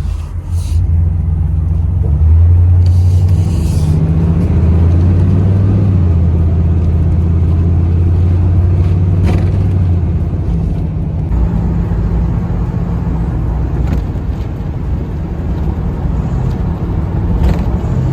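Chevy car's engine running through its newly extended exhaust, a steady low rumble that swells for several seconds about two seconds in and then eases back.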